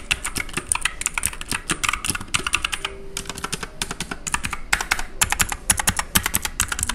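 Typing on a mechanical keyboard with blue switches: a fast run of clicky keystrokes, with a short pause about three seconds in.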